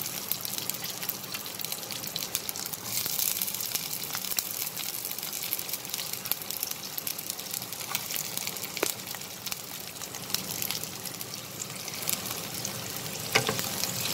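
Cubed red onion sizzling in hot oil in a nonstick pan: a steady frying hiss full of fine crackles. Near the end a wooden spatula begins stirring, adding a few sharper knocks.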